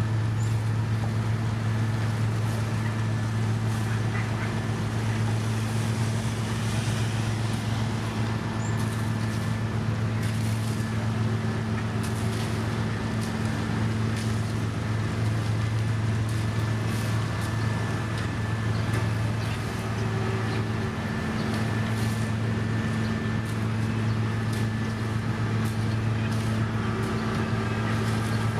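Diesel engine of a heavy road construction machine running at a steady speed, a constant low hum, with scattered light clicks and knocks over it.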